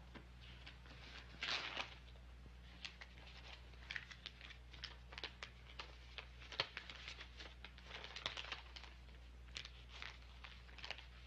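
Paper and envelopes being handled at a desk: faint rustling and crinkling with many short crackles, louder about one and a half seconds in and again around eight seconds. A steady low hum sits underneath.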